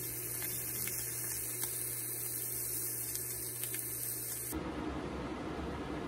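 Fish fillets frying in oil in a nonstick pan: a steady sizzle with a few faint crackles over a low electrical hum. About four and a half seconds in, the sound switches abruptly to a rougher, lower hiss.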